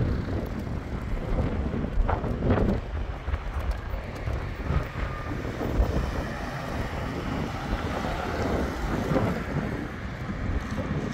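Wind rumbling on the microphone, an uneven low rumble.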